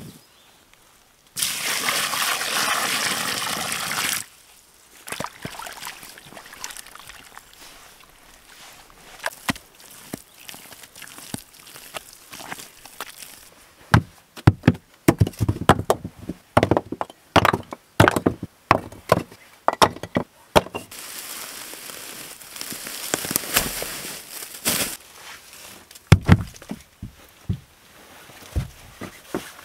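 Dry sand tipped into a pit, a steady pouring rush for about three seconds. Then scattered knocks and scrapes, and a heavy thud near the end as a large flat sandstone slab is shifted.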